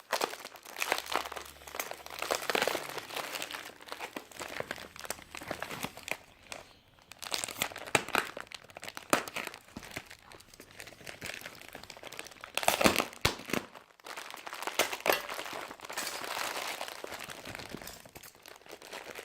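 Protective packaging of a parcel being unwrapped and torn open by hand: irregular crinkling and crackling with sharp tearing snaps, loudest about thirteen seconds in.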